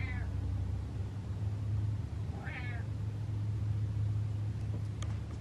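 Domestic cat meowing twice: a short, high meow at the start and another about two and a half seconds in, over a steady low hum.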